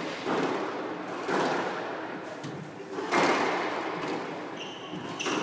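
Squash ball being struck during a rally: four sharp cracks of ball on racket and walls, each ringing on in the enclosed court. Near the end a shoe squeaks briefly on the court floor.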